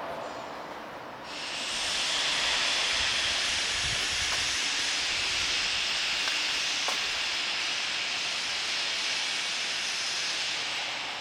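A loud, steady hiss that starts abruptly about a second in and dies away near the end, with a few faint low thumps under it.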